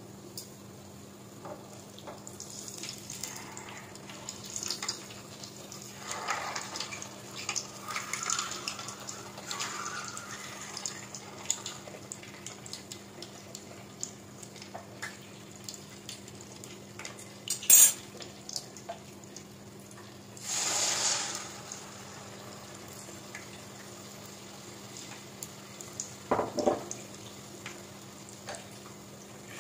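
Flour-coated eggs (kwek kwek) deep-frying in hot oil in a metal pot, sizzling and crackling. Partway through there is one loud, sharp knock, and a little later a burst of sizzle as another egg goes into the oil.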